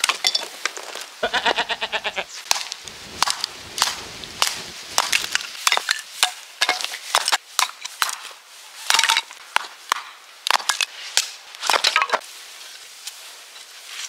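Small axe splitting firewood on a wooden chopping block: a run of sharp, irregular knocks of the blade biting into the wood, with cracking and splintering as pieces split off. A quick creaking crackle of the wood tearing comes about a second in, and the chopping stops about twelve seconds in.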